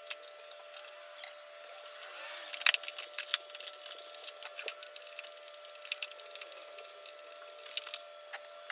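Scattered clicks and knocks of hard plastic parts and hand tools as a power washer's hose reel is taken apart, busiest a few seconds in and again near the end, over a faint steady tone.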